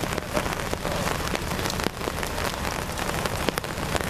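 Steady rain falling, with many separate drops ticking sharply close by.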